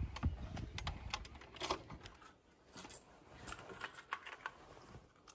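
Scattered light clicks and taps at irregular intervals, the strongest a little under two seconds in.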